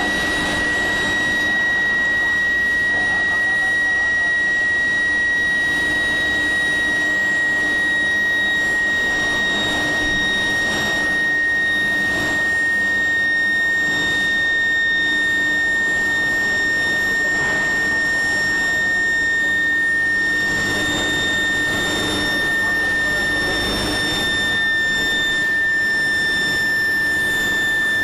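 Billet induction heating furnace running: a loud, steady, high-pitched whine from its induction coil and power supply. The pitch drifts slightly lower, over a noisy background.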